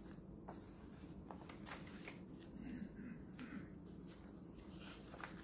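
Paper pages of a ring-bound handmade journal being turned by hand: soft rustles and flicks of paper a few times, with a sharper flick at the very end.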